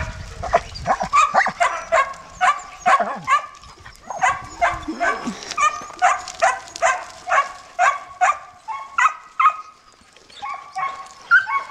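German shepherd puppies about six weeks old yipping and whining over and over, about three short high-pitched yelps a second. The yelps ease off briefly about four seconds in and again near ten seconds.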